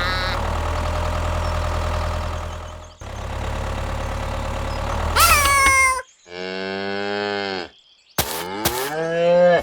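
A steady low motor hum for about six seconds, ending in a sharp rising squeal, then two pitched animal-like calls: a level, low call like a moo, and a rising cry like a meow.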